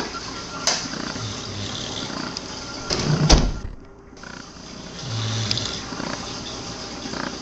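English bulldog sucking and chewing on a plush toy, with wet smacks, a few sharp clicks and short low grunts.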